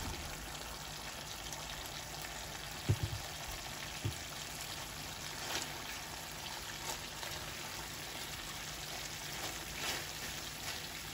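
Hot sauce simmering in a nonstick frying pan, a steady bubbling hiss. It is broken by a couple of dull knocks about three and four seconds in, as fried chicken wings are tipped in from a wire mesh basket.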